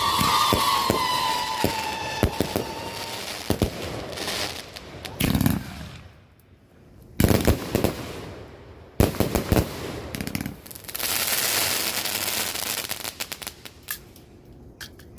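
Master Rage firework going off: a whistle that falls slightly in pitch over the first few seconds amid crackling, then a string of loud bangs about every two seconds, then a long hiss of crackling.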